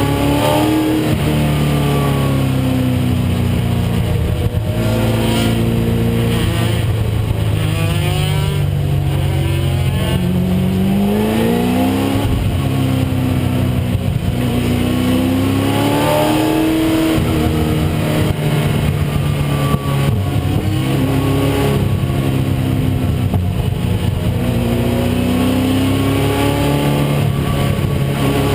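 1996 Ford Mustang race car's engine at racing speed, revving up and dropping back repeatedly as it goes through the gears.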